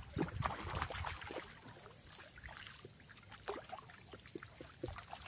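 A carp splashing in a landing net at the water's edge, loudest in the first second or so, then smaller splashes, drips and light knocks as the net is drawn in through the reeds.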